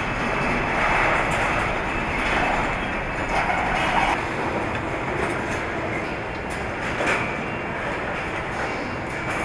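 Car assembly-line noise: a steady mechanical rumble and hiss from the moving line and its machinery, with a few light metallic knocks.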